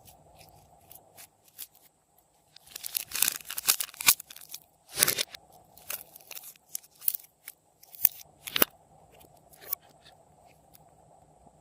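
Glossy slime with hard candy pieces mixed in, worked by hand: a run of crunches, crackles and sharp clicks that starts about three seconds in and dies away near the end.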